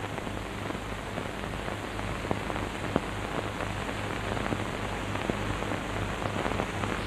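Soundtrack noise of an old optical film print: a steady hiss scattered with crackles and pops, over a low hum.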